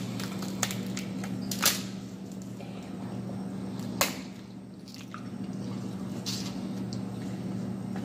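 Crab-leg shells cracking and sauce-coated seafood squelching in gloved hands, with sharp snaps about a second and a half in and again about four seconds in. A steady low hum runs underneath.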